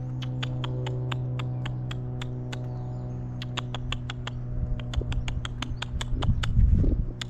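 Quick clicking sounds made by a person calling a squirrel over, about four to five clicks a second in short runs with a brief pause in the middle. A steady low hum runs underneath.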